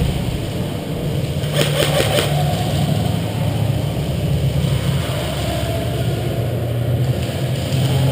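An airsoft electric gun fires a short full-auto burst of rapid, evenly spaced clicks about a second and a half in, lasting under a second. A steady low rumble runs underneath.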